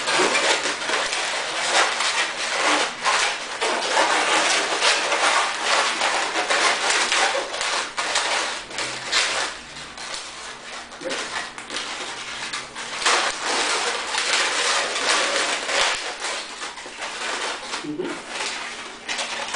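A long white latex modelling balloon squeaking and rubbing under the hands as it is twisted into bubbles: a busy, unbroken run of rubbery squeaks and scrapes.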